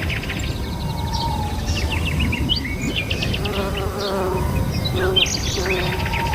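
Garden soundscape: a bee buzzing steadily while small birds chirp over it.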